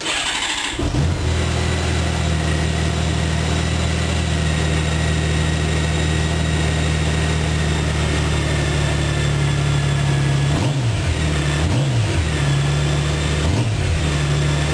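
Honda GL1800 Gold Wing's flat-six engine on its stock exhaust: the starter whirs for under a second, the engine catches and settles into a steady idle, and near the end it is revved briefly three times.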